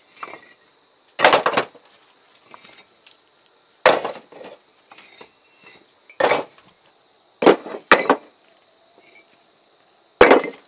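Heavy knocks on wood, one every two to three seconds with a quick double blow in the middle, each ending in a short rattle. A faint steady high hiss runs underneath.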